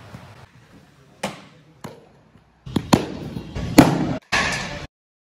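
Baseballs smacking into a catcher's mitt and gear: a sharp hit about a second in and another just after, then a busier stretch of louder hits and clatter that cuts off suddenly.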